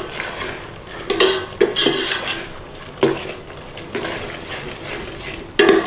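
A spoon stirring thick cooked split peas in a stainless steel stockpot, scraping and clinking irregularly against the pot's sides and bottom.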